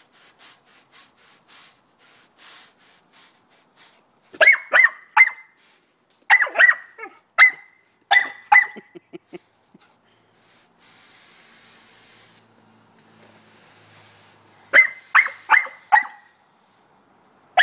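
Pit bull puppy barking in high-pitched yaps, in four quick bursts of three or four barks each, while worrying a push broom. In a lull between bursts the broom's bristles brush softly on the concrete.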